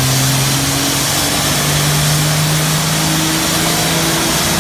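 Dodge Ram pickup's diesel engine running with its pitch climbing in steps, under the loud hiss of a pressurized spray blasting into the engine bay.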